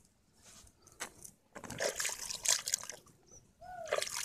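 Wet mud squelching and water sloshing in a waterlogged hole as a hand digs down into it, in irregular bursts starting about a second and a half in. Near the end a short call that falls in pitch.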